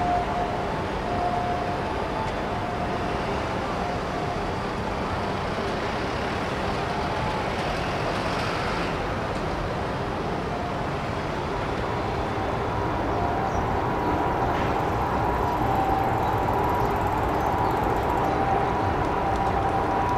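Steady city street noise, a continuous traffic hum, with faint sustained high tones coming and going over it. It gets a little louder near the end.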